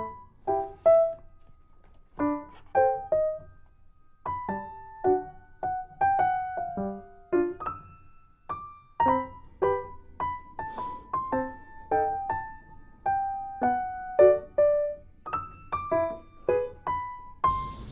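Background music: a gentle solo piano melody of separate plucked-sounding notes, two or three a second.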